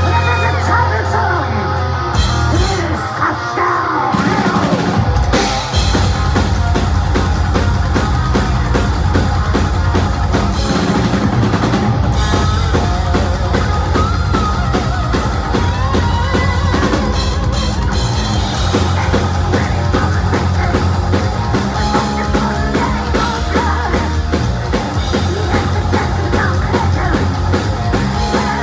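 A heavy metal band playing live in a club: distorted electric guitars, bass and a drum kit, with a singer's vocals at times. The full band settles into a steady driving beat about five seconds in.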